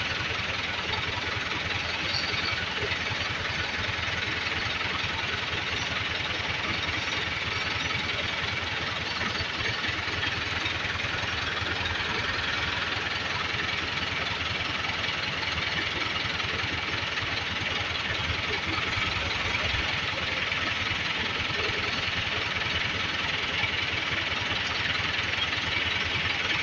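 Massey Ferguson 385 tractor's diesel engine running steadily, with a fast low firing beat and a slight rise in level near the end.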